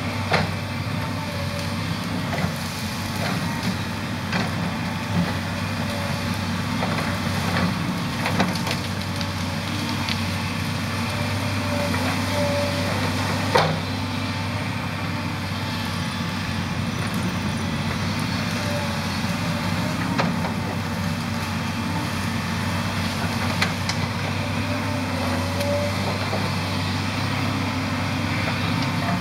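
Volvo 210 tracked excavator's diesel engine running steadily under load as the machine works into trees, with scattered sharp cracks and snaps of breaking wood, the loudest a little under halfway through.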